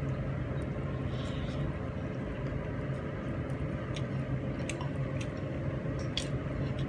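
Someone eating rice and curry by hand: soft chewing and small wet mouth clicks, with fingers working through the rice, over a steady low background hum.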